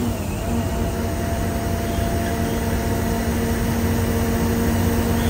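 Bus engine running under way, heard from inside the front of the cabin: a deep rumble with a steady drone over it, its pitch dipping just at the start and then holding level.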